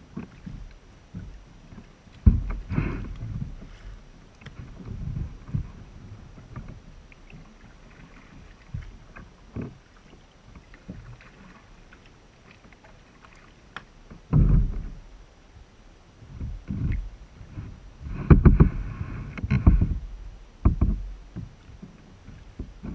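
Kayak being paddled: paddle blades dipping and splashing in the water, with dull thumps carried through the kayak's hull, coming in irregular bursts. The loudest, longest stretch comes a little past two-thirds of the way through.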